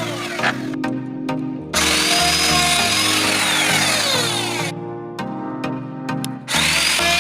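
Electric woodworking power tool cutting wood in two runs: the first from about two seconds in to almost five seconds, the second starting near the end. Each run is a loud rush of noise with a high whine that sags in pitch, heard over background music.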